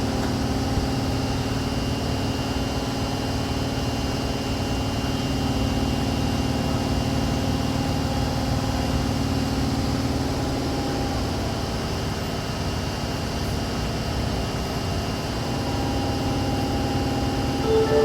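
Steady hum of an Osaka Metro 22 series subway train's onboard equipment, a level noise with a few constant tones that do not rise or fall.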